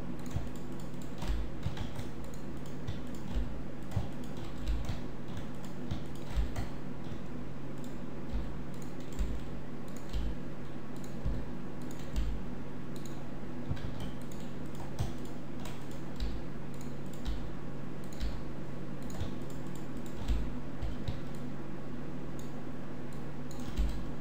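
Computer keyboard keys and mouse buttons clicking now and then at irregular intervals, over a steady low hum: shortcut keys and clicks while editing a mesh in a 3D program.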